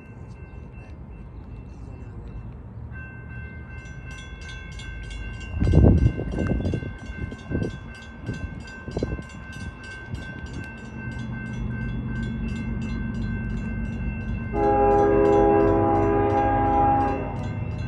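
A railroad crossing bell rings steadily while a CSX freight train's diesel locomotive approaches, its rumble building about halfway through. The locomotive sounds one loud multi-tone horn blast of a couple of seconds near the end. A few loud low thumps come around six seconds in.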